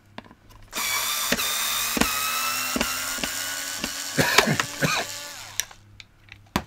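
Cordless electric screwdriver backing out the screws of a plastic cover, its motor whining steadily for about five seconds and sagging slightly in pitch, with clicks and knocks of the bit on the screws. A single sharp click follows near the end.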